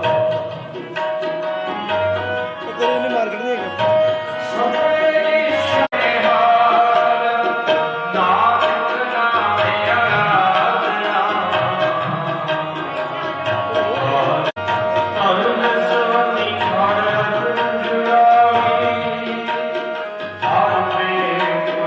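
Sikh kirtan music: tabla keeps a steady rhythm with regular deep strokes under long held melodic notes, with singing at times.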